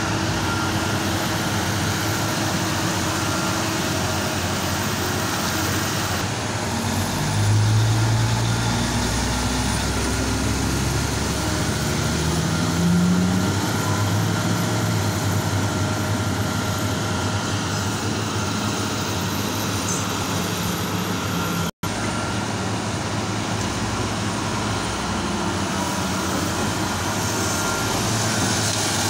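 Heavy mining machinery running: the diesel engines of a large hydraulic excavator and haul dump trucks working coal, a steady machine noise. The engine swells and rises in pitch twice in the first half, as under load. There is a momentary break in the sound about three-quarters of the way through.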